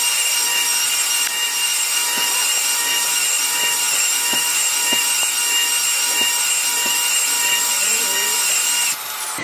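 Large cordless grinder running with a wet number-two diamond polishing pad on a seam in a Fantasy Brown stone countertop: a steady high whine with the pad rubbing on the stone. The motor stops near the end.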